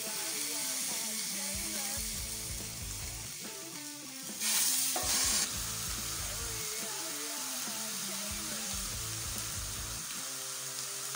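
Raw chicken pieces sizzling in a hot double-sided grill pan, with a louder burst of sizzle about four and a half seconds in that lasts about a second.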